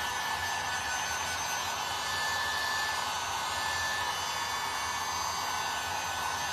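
Handheld electric heat gun running steadily, a constant rushing blow of hot air with a thin high whine, used to dry fresh paint on a wooden cutting board.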